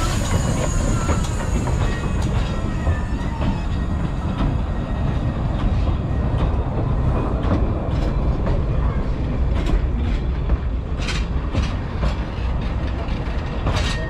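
Narrow-gauge steam train, the Talyllyn Railway's locomotive Tom Rolt with its coaches, rolling slowly past. First the engine goes by, then the coaches, with a steady rumble and a few sharp clacks from the wheels in the second half.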